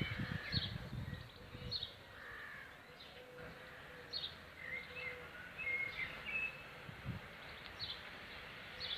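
Small birds chirping in the background, short high chirps coming every second or so with a few brief warbled notes between them, over a faint outdoor hiss.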